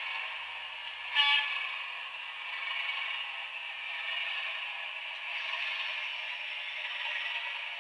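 A Howes Class 37 sound file playing through the small speaker of a Bachmann OO-gauge Class 37 model: the English Electric diesel engine sound runs steadily under power, thin and without bass. There is a brief louder blast about a second in.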